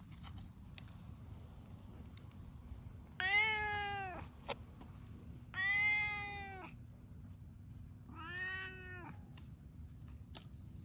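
Orange tabby cat meowing three times, each meow about a second long with a rising-then-falling pitch, a couple of seconds apart; the last one is softer.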